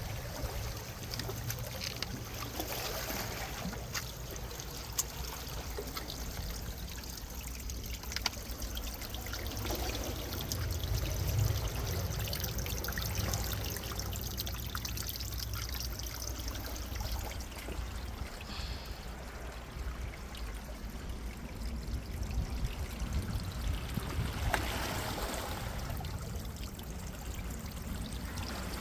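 Water from a small waterfall trickling and splashing down rock: a steady rush with many fine drips and splashes mixed in.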